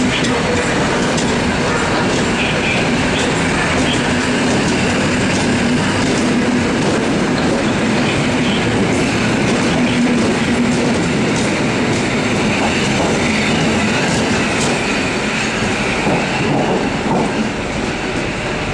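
A train rolling through the station at close range, its wheels clacking over the rail joints and points, with a steady loud rumble.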